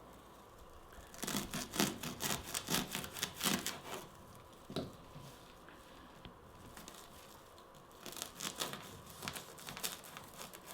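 Victorinox pocket-knife blade cutting through a natural-fibre rope: quick rasping strokes as the fibres tear. There are two bursts of strokes, the first starting about a second in and the second near the end.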